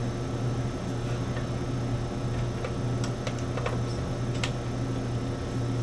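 A few light, sharp clicks and taps of cable connectors being handled and plugged into a controller box, over a steady low hum of lab equipment.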